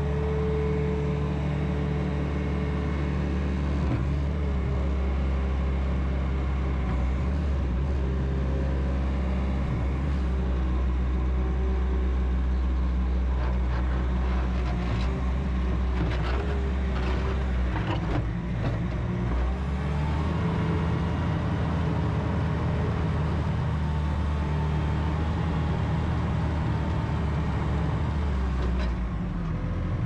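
Bobcat T590 compact track loader's 66 hp Tier 4 diesel engine running steadily as the machine drives and turns on its rubber tracks, with a wavering whine over the drone. There are a few short clanks around the middle.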